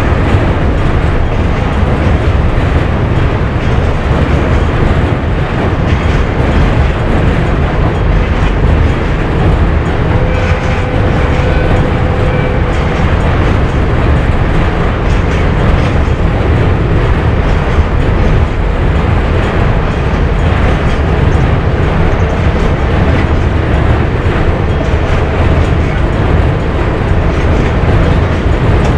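Diesel-hauled freight train of container wagons running across a river bridge: a loud, steady rumble with wheel clatter that carries on as the long train passes.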